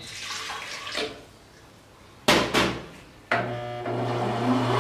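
Warm water poured from a cup into a stand mixer's bowl of batter, then two sharp knocks. A little after three seconds in, the stand mixer's motor starts and runs at low speed with a steady hum.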